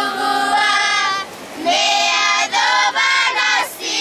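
A group of children singing together unaccompanied, holding long notes, with a brief pause for breath about a second in.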